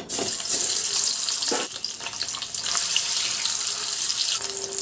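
Spiced boiled eggs sizzling in hot mustard oil in a wok as they fry. The steady hiss starts suddenly as they go in, with a single knock about a second and a half in.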